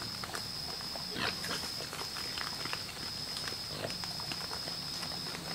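Feral hogs squealing and grunting, with a short falling squeal about a second in, other brief calls and scattered clicks and crunches, over a steady high insect trill that breaks off every second or so.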